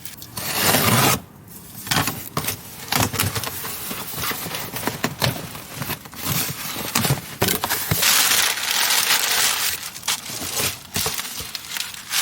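Things being handled and moved about: bursts of crinkling, like plastic or packaging, mixed with scattered knocks and clicks.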